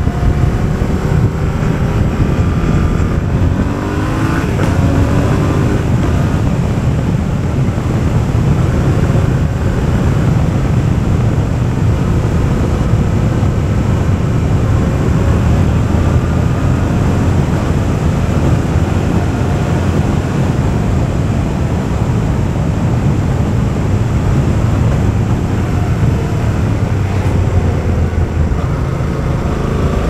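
A Yamaha Ténéré 700 Rally's 689 cc parallel-twin engine running through an Akrapovič exhaust while the bike is ridden. Its pitch rises and falls in the first few seconds and again near the end, and it holds steadier in between.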